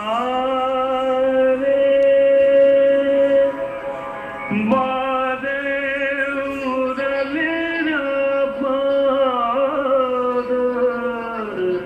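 A Hindi devotional song: a single voice sings slow, drawn-out notes that glide and waver, with a short break about four and a half seconds in before the next phrase.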